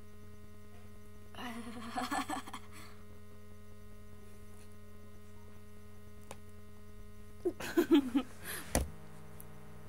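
Steady low electrical hum, with a few short faint noises about two seconds in and again near the end.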